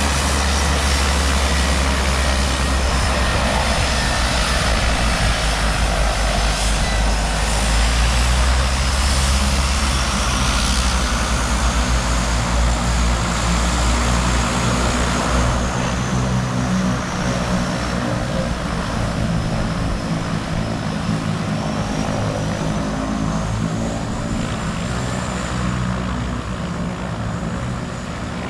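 Seaplane's propeller engines running steadily, a strong low drone under a thin high whine that drifts slowly up and down in pitch; the low drone eases about halfway through.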